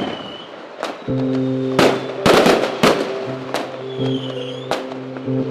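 Fireworks going off in a string of sharp bangs and crackles, with a whistling firework falling in pitch about four seconds in, over music that enters about a second in with a sustained chord.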